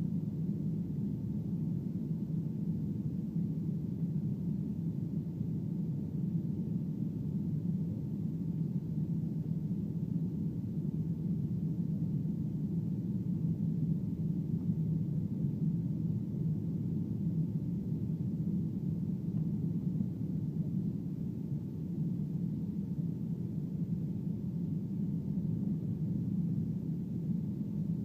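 Steady cabin noise inside a Boeing 737 airliner on final approach with flaps extended: low rumble of the jet engines and rushing air, with a faint steady high tone.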